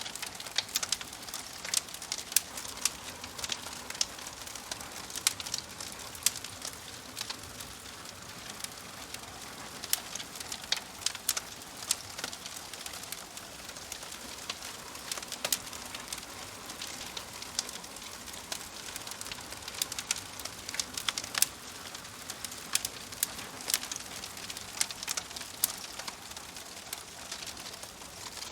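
Wood fire crackling: a soft steady hiss with many sharp, irregular pops and snaps.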